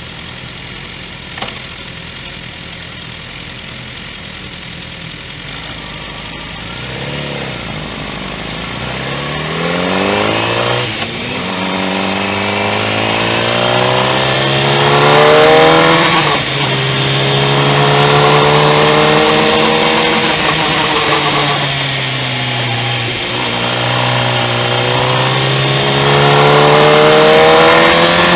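Motorcycle engine heard from on board: running low and steady at first, then pulling hard and accelerating through the gears, its pitch climbing and dropping back at each upshift, with wind noise building as the speed rises.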